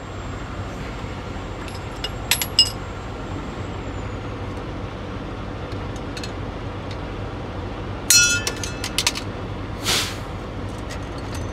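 Metal clinks from hand tools and steel parts while a new truck shock absorber is freed from its shipping strap and fitted to the front suspension. A few light clinks come about two seconds in, then a louder ringing metallic clank around eight seconds and a short rasping burst near ten seconds. A steady low traffic hum runs underneath.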